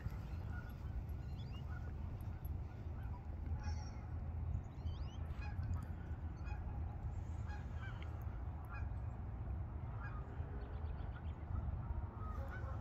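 Geese honking repeatedly, short scattered calls over a steady low rumble.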